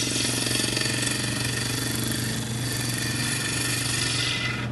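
A gouge taking a draw cut across a wooden bowl spinning on a wood lathe: a steady rushing hiss of the cut that stops just before the end, over the lathe motor's steady hum.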